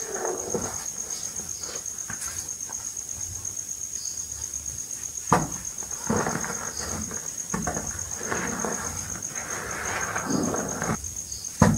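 Reformed gym chalk balls being crushed and crumbled between the hands, a crunchy, powdery crumbling. It comes in bursts, with a sharp crack about five seconds in and another loud crack at the very end. A steady, high-pitched, faintly pulsing whine runs underneath.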